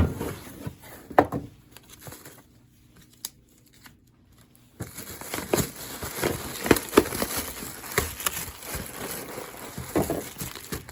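Packaging crinkling and rustling as new engine rebuild parts are unwrapped. There are a couple of knocks in the first second or so and a short lull, then steady crinkling with small clicks from about five seconds in.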